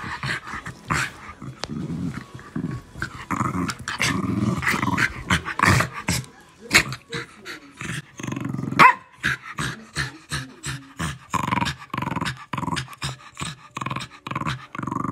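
Two small dogs play-fighting, with continuous rasping growls and snarls in irregular bursts and one loud, sharp yip about nine seconds in.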